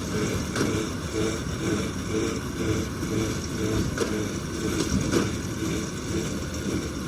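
Farm machinery engine running steadily, with a few sharp clanks at uneven intervals.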